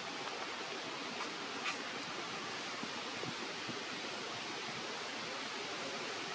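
Steady outdoor background hiss, with a couple of faint clicks about a second and a half in.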